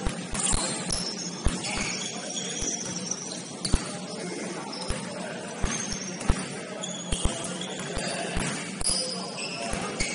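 Sounds of a basketball game in a gym: sneakers squeaking sharply on the court again and again and the ball thudding on the floor at irregular intervals, over a general din of players' voices.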